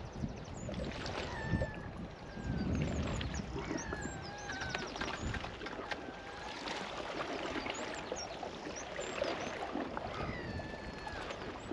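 Wind and sea water lapping, with birds calling over it: several short whistles that fall in pitch, and quick trills.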